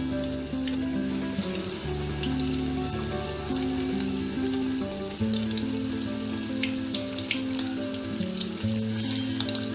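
Batter-coated prawns deep frying in hot oil in a kadai, bubbling with a scatter of sharp crackles. Background music with slow, steady notes plays underneath.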